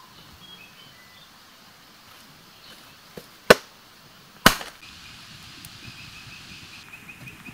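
Two sharp, loud knocks or impacts about a second apart, the second ringing on briefly. After them a faint high chirping repeats rapidly.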